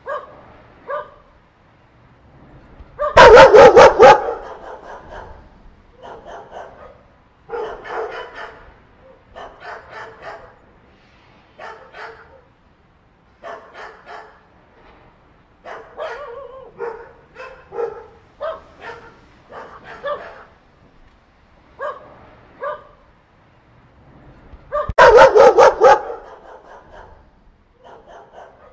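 A group of dogs barking in short, irregular bouts, one after another. Two much louder bursts of barking stand out, one a few seconds in and one near the end.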